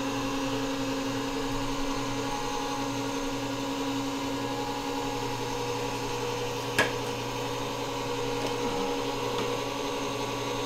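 NordicTrack Commercial X22i incline motor running steadily, turning its worm-gear lead screw to lift the treadmill deck during an incline calibration run, its gears freshly regreased. The hum holds an even pitch, with one sharp click about two-thirds of the way through.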